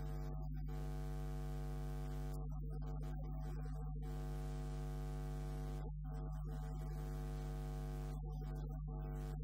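Steady electrical mains hum and buzz: a low drone with a stack of overtones and faint hiss above it, unchanging throughout, with no speech audible over it.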